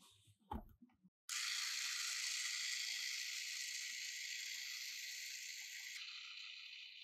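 A short knock about half a second in, then a steady hiss that starts abruptly a second later, slowly fades and thins out about six seconds in.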